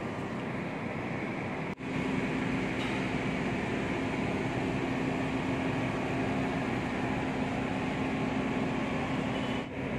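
Passenger train rolling slowly along a station platform: a steady running rumble with a steady low hum. The sound breaks off briefly about two seconds in and again near the end.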